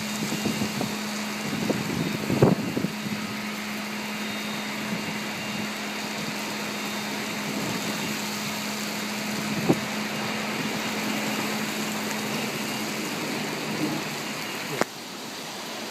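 Heavy downpour hissing steadily, with a steady low hum underneath and a few dull knocks. Near the end a sharp click comes and the rain sound drops in level.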